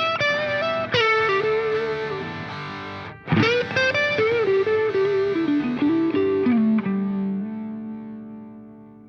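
Background music: a guitar melody with effects, stepping down to a long held low note that fades out near the end.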